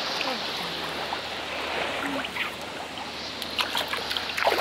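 Steady wash of shallow sea water lapping and rippling, with a few small splashes near the end.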